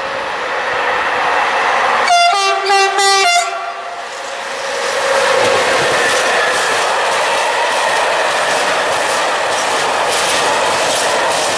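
SNCF BB 26000-class electric locomotive sounding its horn in three short blasts about two seconds in, then passing close hauling a freight train, its wagons rumbling with wheels clacking over the rail joints.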